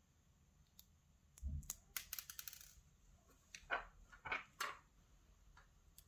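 Faint clicks and scrapes of tweezers and tiny lock pins being handled over a pin tray as the pins are removed from a Kaba Micro lock core. There is a quick run of clicks about two seconds in and a few short scraping sounds near the middle.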